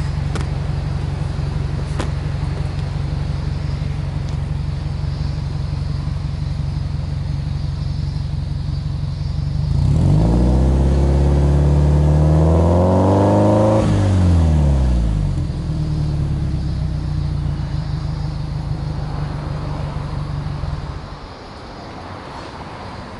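2003 Subaru Impreza WRX STi's turbocharged EJ20 flat-four, heard at its exhaust, idling steadily. About ten seconds in it is revved once, climbing over a few seconds and dropping quickly back to idle. The engine stops near the end.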